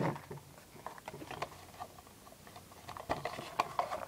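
Hands working at the packaging of a trading-card starter pack, trying to free the card reader inside: a run of small clicks, crinkles and scrapes, busier near the end.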